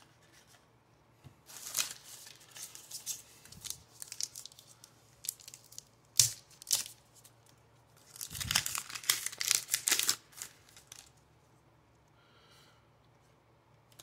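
Wrapper of a Diamond Kings baseball card pack being torn open and crinkled by hand, in three stretches of tearing and crackling, the longest about eight to ten seconds in.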